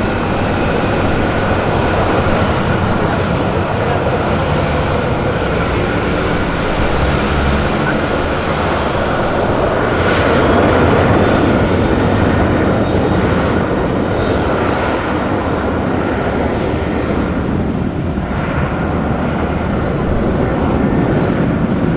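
Jet airliner engines running: a loud, steady noise with a thin high whine running through it, growing a little louder about ten seconds in.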